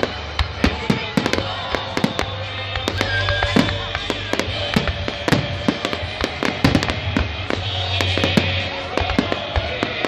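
Fireworks display: aerial shells and crackling effects go off in a rapid stream of sharp bangs and pops, several a second, over continuous music.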